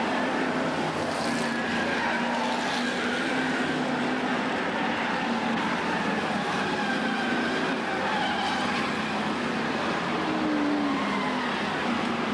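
F1 stock car engines running at racing speed as several cars lap the oval. It is a steady roar, with engine notes rising and falling as the cars pass.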